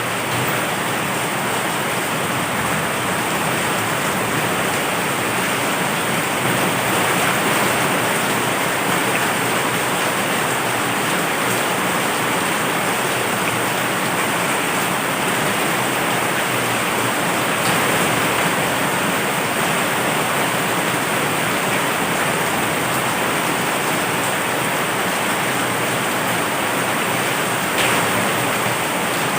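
Heavy rain falling steadily as a dense, even hiss, with one brief sharper crack near the end.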